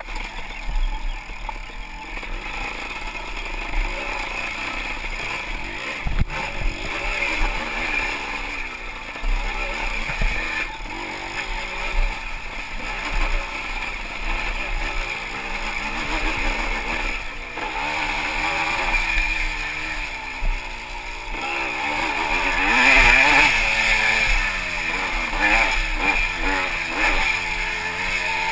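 Yamaha IT200 two-stroke dirt bike engine running under the rider, its revs rising and falling continually as it is ridden over a muddy, rocky trail, climbing to its highest revs about two-thirds of the way in. A few sharp knocks from the bike striking rough ground.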